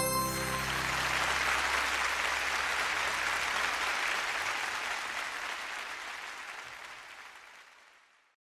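Applause: a dense, even clapping that comes in as the last notes of the music die away, then fades out gradually and stops about eight seconds in.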